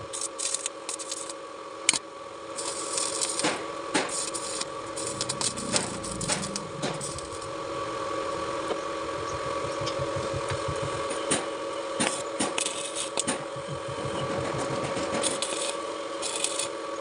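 Electric arc welding: a crackling, hissing arc over a steady hum from the welding machine, with sharp clicks now and then.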